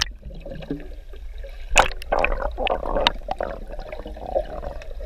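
Water splashing and gurgling right at the microphone, with a sharp knock about two seconds in followed by a couple of seconds of churning.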